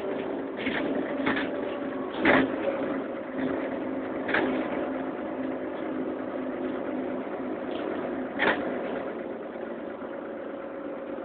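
Cabin noise of a Karosa Citybus 18M articulated city bus under way: a steady engine and drivetrain hum, broken by a few sharp knocks and rattles, the loudest about two seconds in.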